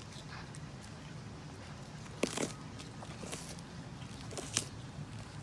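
A tortoise biting into a raw green bell pepper held out by hand: several short crisp crunches, the loudest about two seconds in and again near the end.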